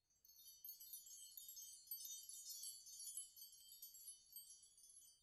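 Faint, high-pitched chimes tinkling in many overlapping ringing tones, thinning out near the end.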